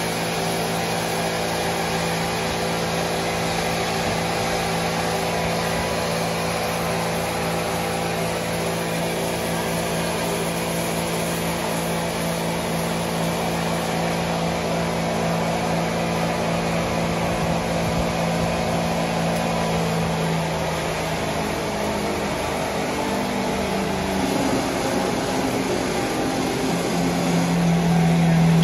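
Steady hum of sawmill machinery running, with a low droning tone that shifts pitch about two-thirds of the way through and grows louder near the end.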